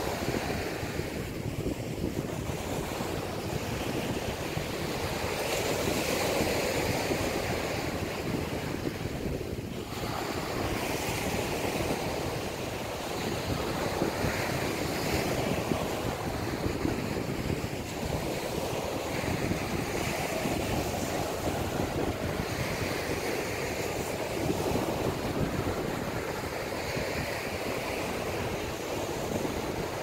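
Gentle surf on a sandy beach: small waves breaking and washing up the shore, the hiss rising and falling every few seconds.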